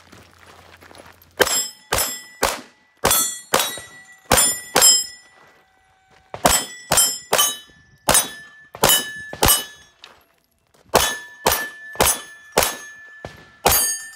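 Rapid handgun fire in three quick strings of about seven shots each, with short pauses between them. Many shots are followed by the ringing ping of struck steel targets.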